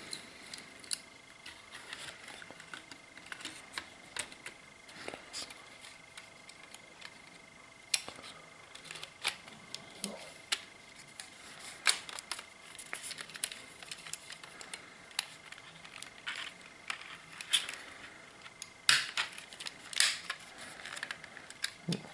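Scattered light clicks and taps of the plastic body and chassis of a Trix Express D-Zug model railway coach being handled and fitted back together.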